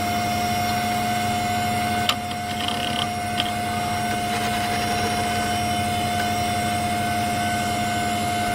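A machine whine holding one steady pitch over a lower hum, after spinning up in pitch just before. A sharp click sounds about two seconds in and a smaller one a little over a second later.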